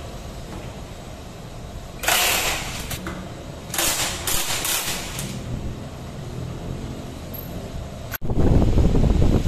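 Cordless impact driver running in two short bursts of about a second each, loosening the bolts of a Honda PCX160 scooter's CVT cover. After a sudden break near the end, a louder, rough low-pitched noise takes over.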